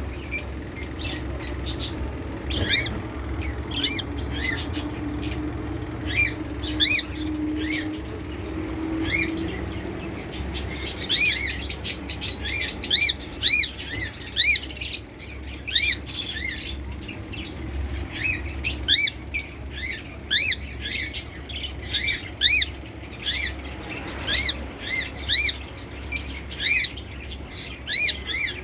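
Cockatiel chirping over and over in short, arched calls, coming thicker and faster in the second half, over a steady low hum.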